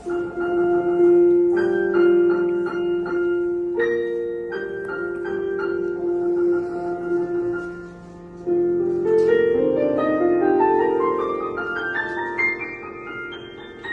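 Piano playing held chords and notes, then, about eight seconds in, a rising run of notes that climbs step by step and rings on under the pedal.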